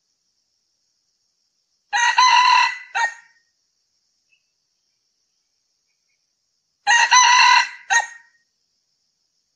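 Male red junglefowl crowing twice, about five seconds apart. Each crow is a short call that ends in a brief, separate final note.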